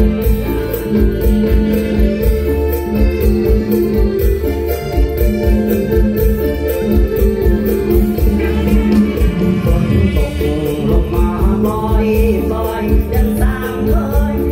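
Live Isan mor lam band music: a steady, fast drum beat under held chords, with a lead melody line coming in about halfway through.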